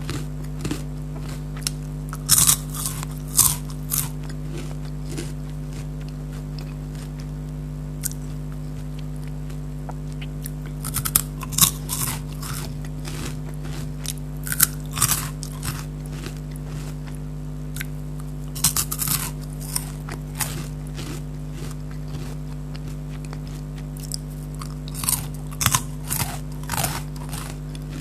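Kurkure corn puff snacks being bitten and chewed close to the microphone. The crisp crunches come in several clusters of sharp cracks, with a steady low hum underneath.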